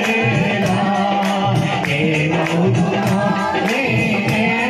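A man singing a worship song into a handheld microphone, amplified, over a steady percussion beat.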